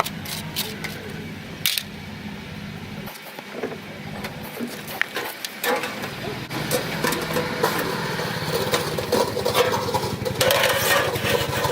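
A small engine running steadily, with frequent clicks, knocks and rustling over it.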